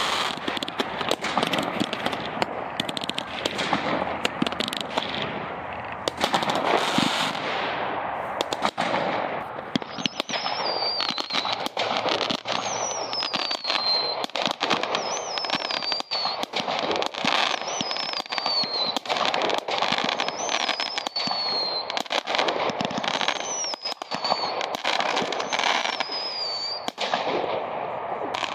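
Fireworks display: a dense, continuous run of aerial shell bangs and crackling. Through the middle part comes a series of high whistles, each falling in pitch, about one every second or two.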